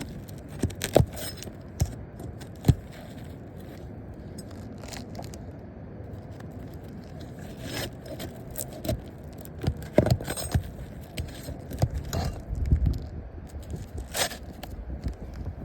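An asphalt shingle being worked loose: scraping and crackling with scattered sharp knocks, the loudest about one and nearly three seconds in and a cluster around ten seconds in.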